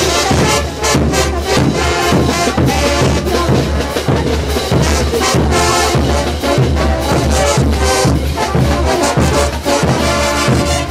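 Bolivian marching brass band playing festival dance music: massed sousaphones, baritone horns, trombones and trumpets over a steady bass-drum beat.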